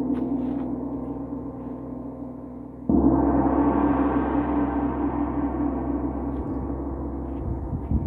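Large hanging gong struck with a padded mallet about three seconds in, swelling at once into a loud, sustained ring of many tones with a regular pulsing beat, about three a second, in its low hum. Before the stroke, the ring of an earlier stroke is fading away.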